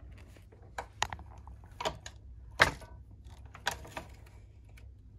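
Irregular clicks and knocks of small hard objects being handled, about five sharp ones spread over a few seconds, the loudest a little past halfway.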